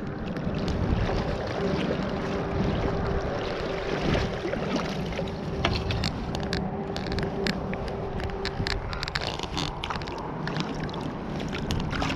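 Shallow river current washing and swirling around a wading angler's legs, with scattered small splashes and ticks as a trout is handled in a landing net.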